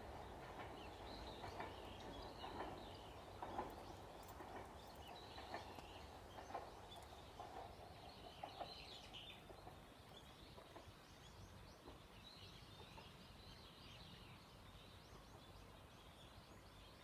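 Near-silent outdoor ambience with faint bird chirps, and in the first half faint knocks about once a second that die away.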